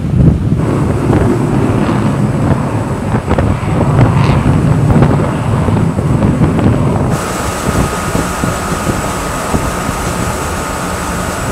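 Wind buffeting the microphone over a steady low rumble. About seven seconds in the sound changes abruptly to a thinner rush with a faint steady whine.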